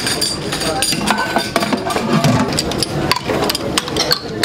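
Steel ladle knocking in a large steel soup pot and ceramic bowls clinking on a steel counter as soup is served: many short, sharp clinks, irregular and close together.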